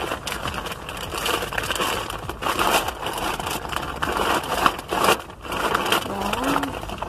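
Glossy plastic courier mailer bag rustling and crinkling in irregular bursts as it is pulled open and handled.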